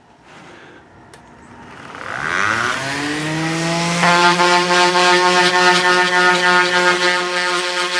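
Small rotary tool with a buffing wheel spinning up over about two seconds, then running steadily at high speed with a whine, buffing polishing compound on a lens.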